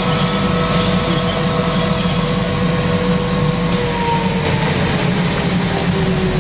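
Automatic pouch labelling machine with pouch feeder running: a steady mechanical din with a low hum, and a motor tone that sinks slowly in pitch over the second half.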